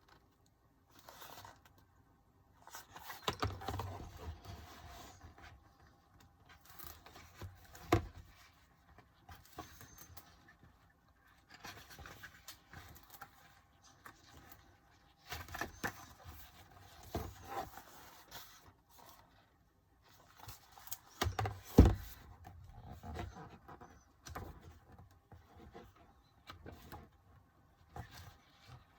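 Handling noise from a glossy album photobook and paper inserts: intermittent rustling and page handling, with a few sharp knocks or taps, the loudest about 22 seconds in and another about 8 seconds in.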